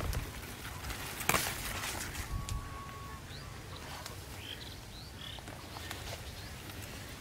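Rustling of pumpkin leaves and stems as the flowers are picked, with one sharp snap about a second in, then a few faint, short high bird chirps.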